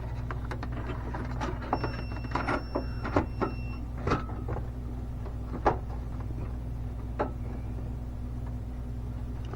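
Steady low hum of an EVAP smoke machine running while it pushes smoke into the system, with scattered clicks and knocks from parts being handled. A thin high whine sounds briefly about two seconds in.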